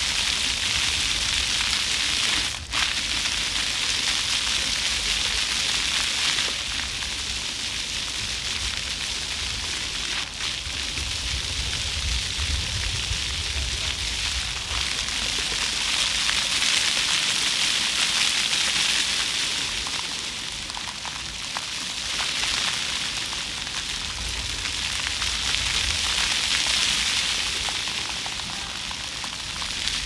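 Floor fountain jets splashing onto wet paving stones, a steady hiss of falling water that swells and eases every few seconds.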